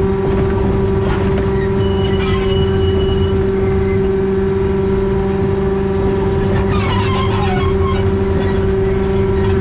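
Diesel engine of a diesel-hydraulic narrow-gauge locomotive running at a steady speed, heard from the cab: a constant drone with a low rumble. A short high squeal comes about two seconds in, and light clatter comes a few seconds before the end.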